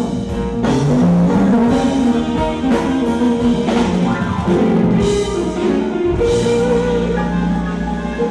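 Rock band playing an instrumental passage, with electric guitar, sustained bass notes and drum kit hits.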